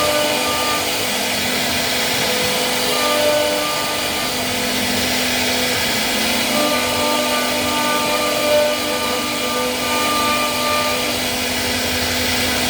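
CNC wood router running: a steady whine and hiss with several tones that shift in pitch every second or two as the machine moves.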